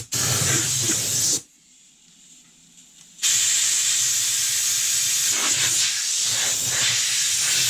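Compressed air hissing from an air blow gun aimed into the gap between the tire bead and the steel rim. There is a short blast, then a longer steady blast starting about 3 seconds in.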